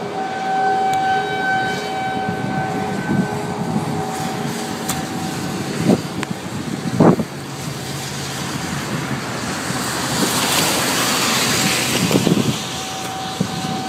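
Road noise heard from inside a moving car on a rain-soaked highway: a steady rush of tyres on wet pavement and wind. A steady tone fades out over the first few seconds, and a louder hiss swells up about ten seconds in before easing off.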